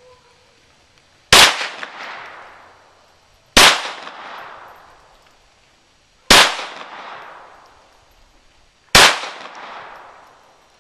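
Four gunshots fired one after another, about two and a half seconds apart, each echoing and dying away over a second or two.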